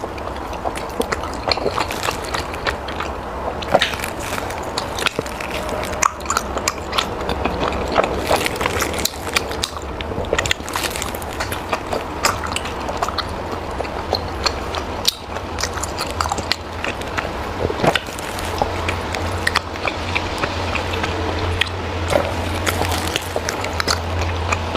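Close-up chewing and biting, with many short wet mouth clicks, over a low steady hum that gets stronger about three quarters of the way through.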